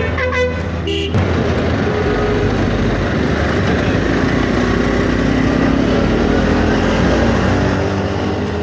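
Motorcycle riding in dense city traffic: steady engine and road-and-wind noise, with other vehicles running close by and a few brief pitched sounds in the first second.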